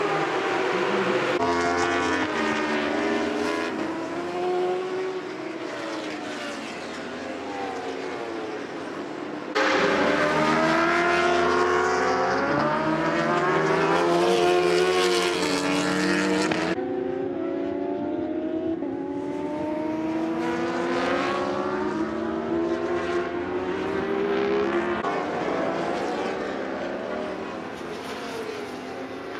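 Racing motorcycle engines at high revs, their pitch rising and falling with the throttle and gear changes as the bikes go past, in several cut-together shots; the sound jumps louder about ten seconds in and changes again a few seconds later.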